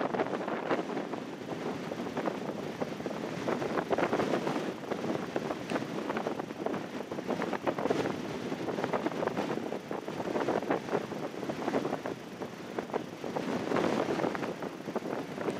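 Strong, gusty wind blowing across the microphone: a steady rush with crackling buffets that swells and eases with the gusts.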